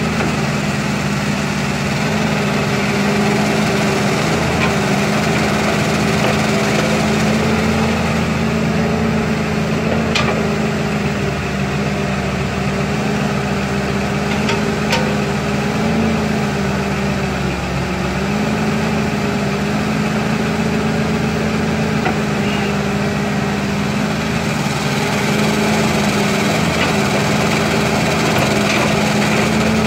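An old excavator's diesel engine running steadily, its pitch dipping briefly as it takes load a little past the middle. A few faint clicks sound over it.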